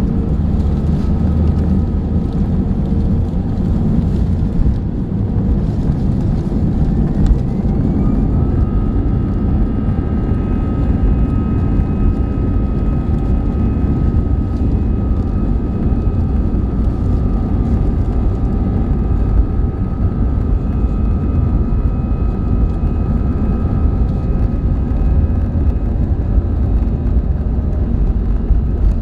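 Airbus A320 cabin noise: a steady low rumble from the jet engines, with a turbine whine that rises about seven seconds in and then holds at a steady pitch.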